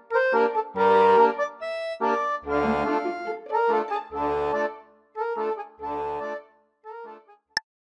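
Accordion playing a short melodic phrase of notes and chords, with low bass notes sounding under several of them, dying away towards the end. Near the end comes a single sharp metronome click, the first beat of a count-in at 60 beats a minute.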